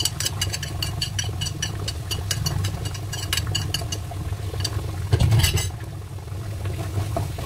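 Wooden spatula stirring chopped tomatoes and parsley in a saucepan on the stove: quick clicks and scrapes against the pan for the first few seconds, and a louder scrape about five seconds in, over a steady low hum.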